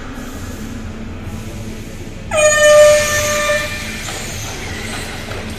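A horn sounds one loud, steady note for about a second and a half, starting about two seconds in, over steady background noise with a faint low hum.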